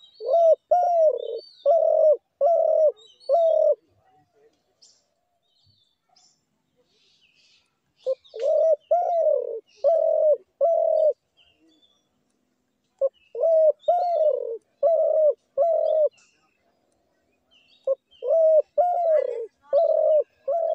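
Spotted dove cooing: four bouts, each a quick run of five or six low cooing notes, a few seconds apart, with faint chirps of small birds behind.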